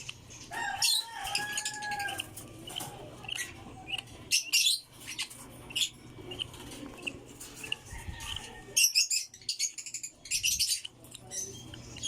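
African lovebird giving repeated shrill, high-pitched squawks, with bursts of wing flapping.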